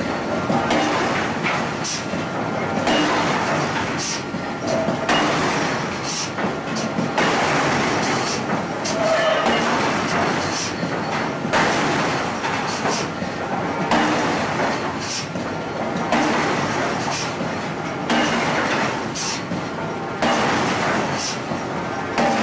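Forging power hammer striking a red-hot steel disc in a ring die, about one heavy blow a second, over the steady din of the running machine.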